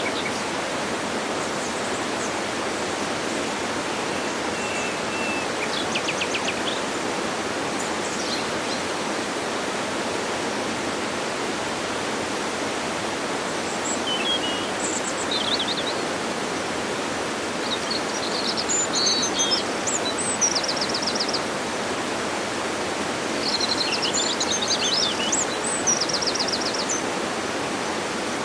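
Waterfall rushing steadily, with birds chirping and trilling over it now and then, most often in the second half.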